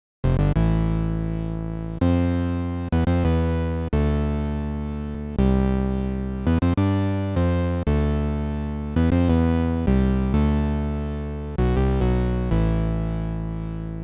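Roland PROMARS synthesizer playing a preset: a run of notes and chords, each starting sharply and fading slowly, with a new one about every one to one and a half seconds.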